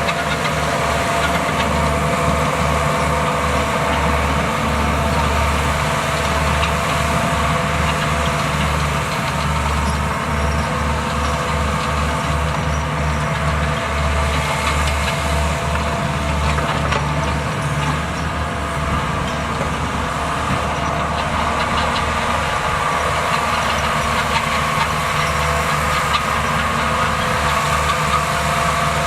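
Diesel engine of heavy earthmoving equipment running steadily while moving dirt, a throbbing low rumble with a steady whine above it.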